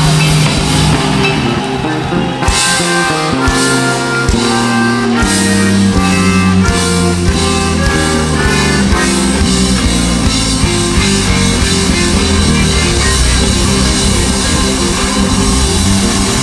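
Live rock band playing an instrumental passage with no vocals: a drum kit and bass guitar under held notes and chords from a button accordion (bayan).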